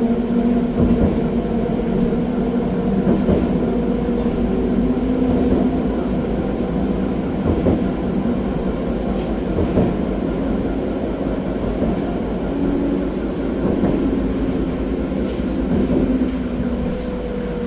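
Pesa 122NaL Swing low-floor tram heard from inside while under way: a steady ride rumble of wheels rolling on the track, with a few held drive tones that shift slightly in pitch, and occasional knocks.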